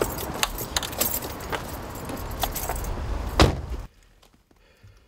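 Car keys jangling with small clicks and rustling as someone climbs into a car, then a loud thud about three and a half seconds in as the car door shuts.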